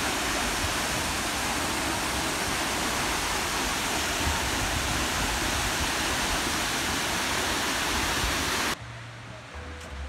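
Waterfall plunging into a pool: a steady, dense rush of falling water that cuts off suddenly near the end, leaving a much quieter background.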